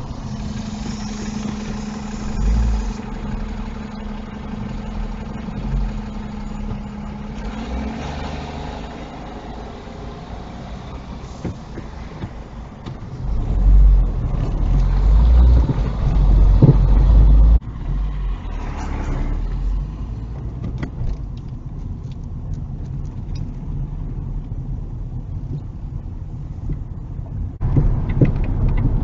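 Car interior sound picked up by a dash cam: engine and road noise of a car driving in town traffic, with louder low rumbling in the middle. The sound changes abruptly twice where separate drives are joined.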